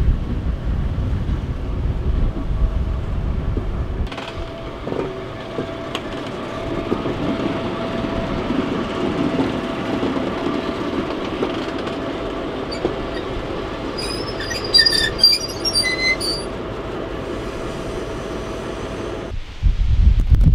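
Freight train hauled by an ST44 (M62-type) diesel locomotive rolling slowly past on the track, with a steady rumble and clatter of wheels and wagons, and a cluster of high wheel squeals about fourteen to sixteen seconds in. Wind buffets the microphone for the first four seconds and again near the end.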